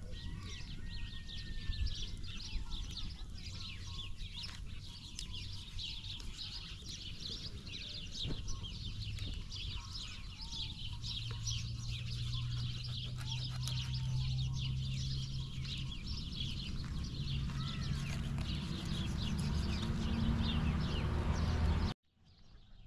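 Outdoor yard ambience of many birds chirping densely, with a few chicken clucks and calls and a low steady hum underneath. The sound cuts off abruptly near the end.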